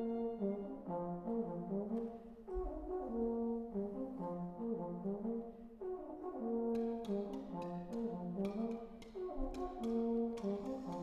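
A small ensemble of brass instruments, horn-like, playing overlapping held notes in slow phrases that swell and fade about every two to three seconds. From about seven seconds in, scattered sharp clicks or taps sound over the notes.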